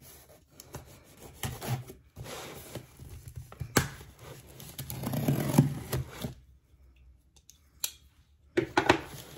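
A sturdy cardboard shipping box being cut and torn open by hand, with scraping, rustling and scattered sharp clicks of the cardboard being handled, and a short quiet pause before more handling near the end.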